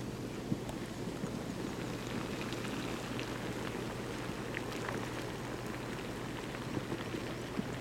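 Muddy flash-flood water rushing and churning down a dry desert wash, a steady wash of noise with a few faint ticks scattered through it.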